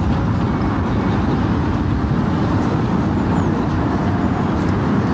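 Steady low rumbling background noise of an outdoor recording, even in level with no distinct events.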